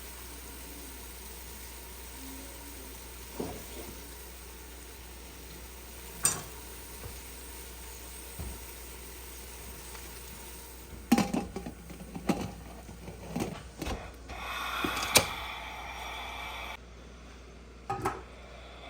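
Kitchen clatter of dishes and utensils: a few separate clinks and knocks, then a busy run of clattering about eleven seconds in. This is followed by a few seconds of steady hiss that cuts off suddenly.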